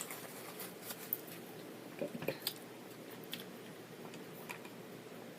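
A person biting and chewing kernels of Mexican street corn (elote) off the cob: scattered small wet clicks and crunches, with a short cluster about two seconds in.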